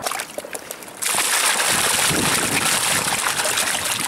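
Water and live fish pouring out of a tipped plastic tub into shallow lake water: a loud rushing splash that starts suddenly about a second in, after a few small knocks.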